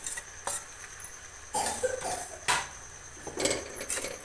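A spoon scraping and knocking against a steel bowl and the pot rim as grated jaggery is tipped into the pan: a handful of short clinks and scrapes.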